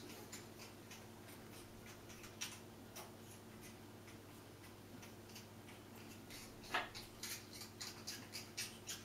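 A scattering of soft, dry clicks and ticks, irregular and sparse at first, with one louder click about seven seconds in and a quicker run of clicks near the end, over a faint electrical hum.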